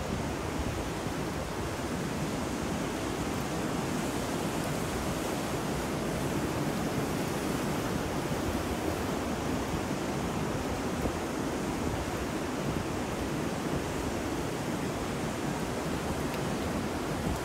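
Ocean surf, wind and rain blended into a steady, even rush of noise, with no single wave or gust standing out.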